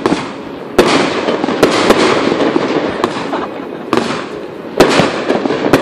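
Aerial fireworks display: about six sharp shell bursts at irregular spacing, over continuous crackling.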